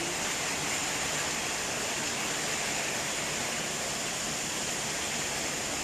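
Rain falling steadily, a continuous even hiss with no breaks.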